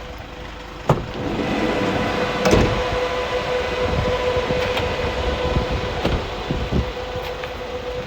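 The idling four-cylinder diesel of a 2016 Mercedes-Benz Sprinter 213 CDI and its refrigeration unit running with a steady hum. About a second in there is a click and the running grows louder, then a knock follows at about two and a half seconds: the sliding side door being opened.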